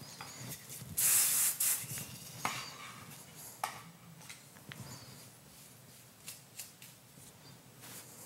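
A short burst of aerosol hairspray about a second in, a hiss lasting about half a second. After it come faint rustling of hair and a few soft clicks as the hair is worked with a comb.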